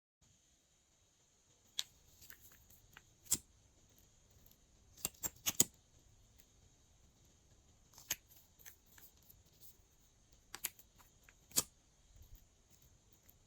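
Glossy slime being handled, giving sharp, scattered clicks and pops at irregular intervals, with a quick cluster of three about five seconds in.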